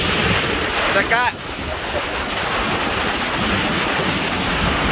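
Heavy rain and strong wind, a steady loud rushing hiss with gusts buffeting the microphone. A brief high squeak sounds about a second in.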